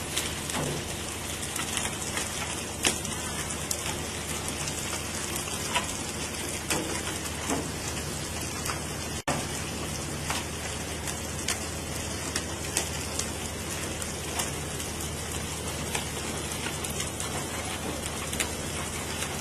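Steady hiss of water spattering, with many small scattered patters, over a low steady hum.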